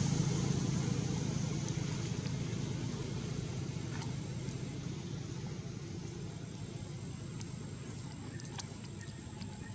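Low motor-vehicle rumble fading gradually, with a faint steady high-pitched whine and a few light clicks.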